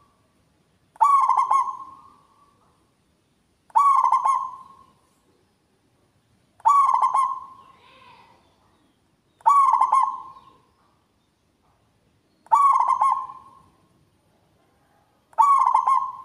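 Zebra dove (perkutut) cooing: a quick, stuttering run of coo notes that starts loud and trails away, repeated six times at about one phrase every three seconds.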